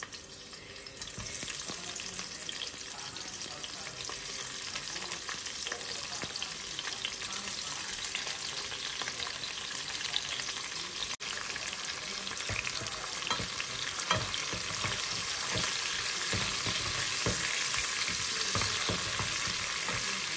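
Onions sizzling in hot oil in a pan, the sizzle jumping up about a second in. From about halfway on, a utensil knocks and scrapes against the pan as they are stirred.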